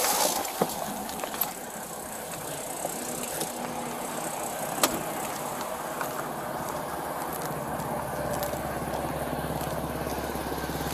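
Rustling and knocks as the wearer of a body camera climbs out of a car, with a sharp click about five seconds in; then a red Chevy Blazer's engine idling steadily, growing louder over the last few seconds as the camera nears it.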